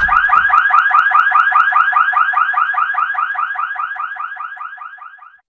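Logo-intro sound effect: a fast, alarm-like warbling chirp repeating about five or six times a second. It starts abruptly and fades out over the last couple of seconds.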